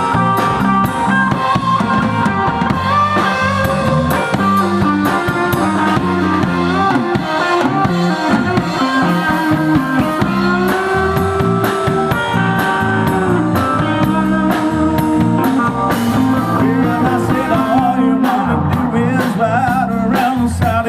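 Live rock band playing an instrumental passage: guitar lines with bent, gliding notes over bass and a drum kit keeping a steady beat.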